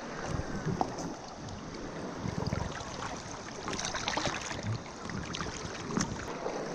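Shallow river water rushing and rippling over rocks right at the microphone, with small splashes and clicks and a low rumbling bump a little after two seconds.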